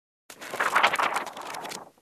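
Pages of a paper book flipped rapidly, a fast flutter of many page strikes that starts a moment in, lasts about a second and a half, and tapers off before stopping.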